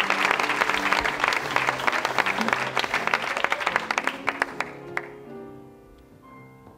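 A group applauding in a room, the clapping thinning and dying away about five seconds in. Held instrumental chords start underneath about half a second in and carry on alone near the end.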